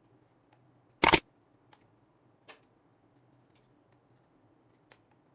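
A sharp double click about a second in, then a few faint light ticks, as a DSLR's flip-out screen is swung and turned on its hinge.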